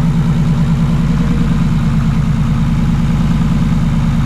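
Fully built, turbocharged RB25DET straight-six of a Nissan Skyline R33, with a Garrett 3582R turbo, idling steadily with an even, regular pulse. The engine is running freshly rebuilt after its ECU problem was diagnosed.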